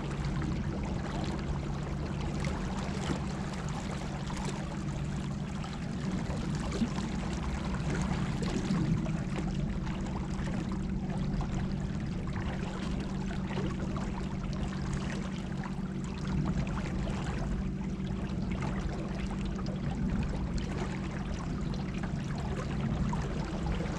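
Water rushing and splashing against a small boat's hull as it moves along, over a steady low hum from its two electric trolling motors.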